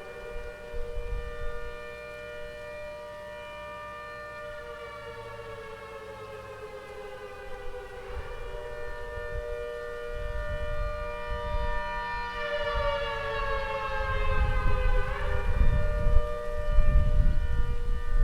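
ACA Hurricane 130 outdoor warning siren sounding from about 1500 feet away: a chord of several tones that slowly sags in pitch, jumps back up about halfway through, sags again and rises sharply near the end. A low rumbling noise grows louder in the second half.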